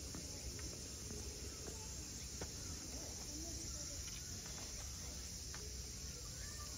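Steady high-pitched insect chorus, a summer drone of cicadas or crickets, with a low background rumble and faint distant voices.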